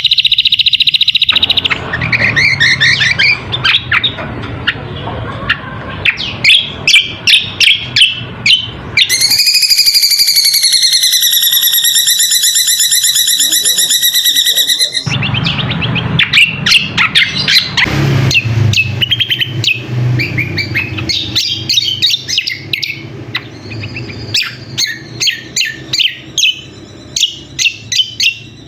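Cucak kombo (kecial kombok) song in a bird-lure recording: loud, rapid high chirps and calls, broken about a third of the way in by one long trilled note held for about six seconds, then more quick chirping.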